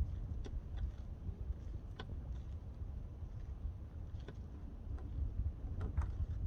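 Wind buffeting the microphone outdoors as a fluctuating low rumble, with a few faint clicks or taps scattered through it.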